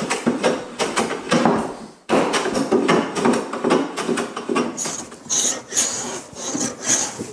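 Sharp steel jack plane shaving down a European beech plank on a workbench. The blade takes a quick series of rasping cutting strokes, with a brief pause about two seconds in.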